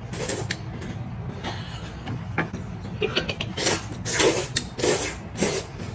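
Close-up eating sounds of someone chewing pork knuckle: irregular wet smacks and chews, coming more often in the second half.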